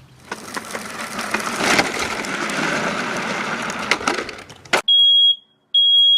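A dense crackling hiss with scattered clicks, which cuts off suddenly near the end. It is followed by a high-pitched electronic alarm beeping twice in even, half-second beeps.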